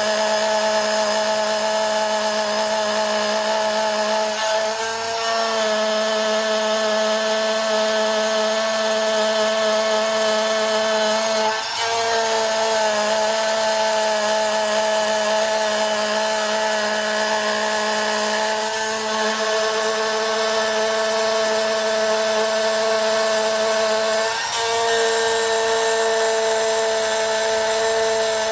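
CNC engraving machine's spindle running steadily under cutting load as its bit engraves copper, giving a steady whine of several tones. The pitch briefly dips and recovers four times, roughly seven seconds apart.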